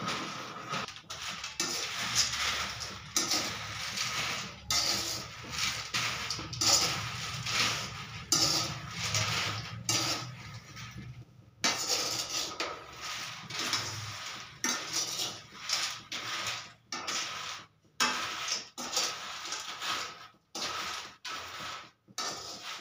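Metal spatula scraping and stirring peanuts roasting in sand in a steel kadai, a run of irregular scraping strokes with brief pauses.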